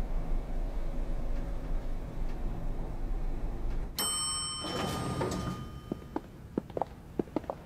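A low steady hum, then about four seconds in an elevator chime rings with several held tones as the elevator doors slide open. Near the end, footsteps start clicking on a hard floor.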